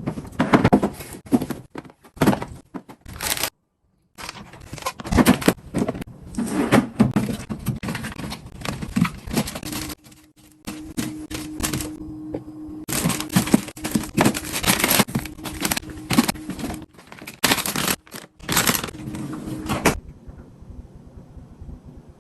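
Food containers being set down and slid on refrigerator shelves: irregular knocks, clatters and scrapes, with a short pause about four seconds in, and a steady low hum through the second half.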